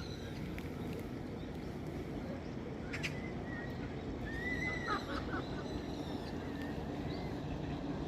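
A few short bird calls, the clearest about halfway through, over a steady low background noise.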